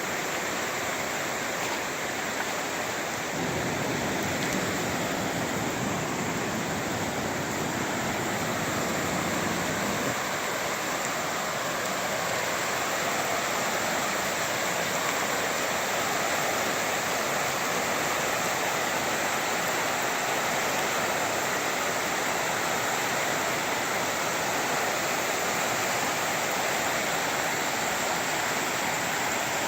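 Flooded creek water rushing steadily. A deeper low rumble joins in from about 3 to 10 seconds in.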